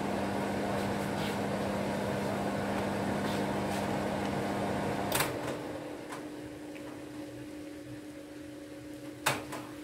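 Steady hum of a kitchen fan, cut off with a click about five seconds in; a fainter hum goes on, with another click near the end.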